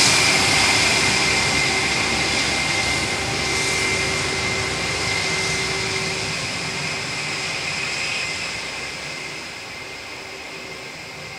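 Airbus A321 airliner's jet engines at take-off thrust: a loud rush with a steady high whine, fading gradually as the aircraft moves away.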